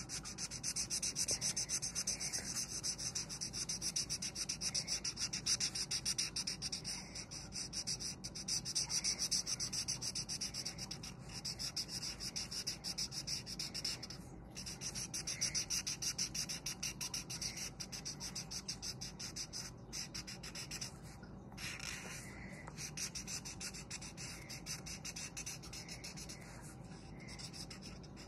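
Felt-tip marker rubbing back and forth on paper in quick, rapid scratchy strokes as an area is coloured in, with a few short pauses.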